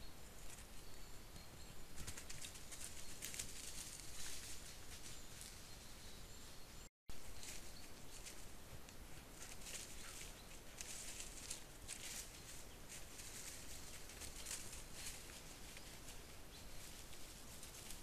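Young red foxes scuffling and playing on the forest floor, their feet rustling and crackling in dry leaf litter and twigs in irregular bursts, over the steady hiss of a trail camera's microphone.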